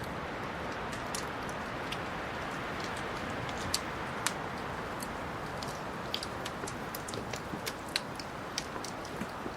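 Wood fire crackling: a steady low hiss under frequent sharp, irregular pops and snaps, with two louder pops about four seconds in.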